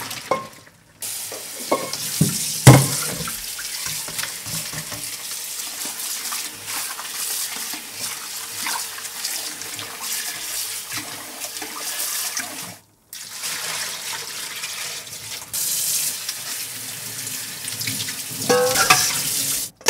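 Kitchen tap water streaming into a stainless-steel sink as blanched oyster mushrooms are rinsed by hand in a mesh strainer. A couple of sharp metal clunks come about two seconds in, the loudest sounds. The water breaks off briefly about two-thirds of the way through.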